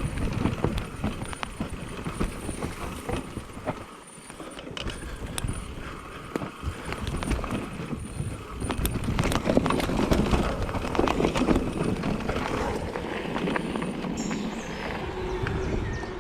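Specialized Turbo Levo e-mountain bike riding a rough downhill trail: tyres on dirt and stones and the frame, chain and suspension rattling and knocking over the bumps in a dense clatter. It eases briefly about four seconds in and gets louder again later.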